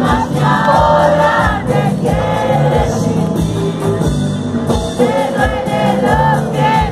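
Live band playing loudly, a singer's voice over a steady drum beat, as picked up by a phone recording in the audience.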